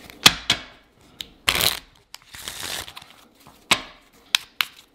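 A deck of playing cards being shuffled by hand: sharp card snaps and clicks, with a short riffling burst about a second and a half in and a softer one just after.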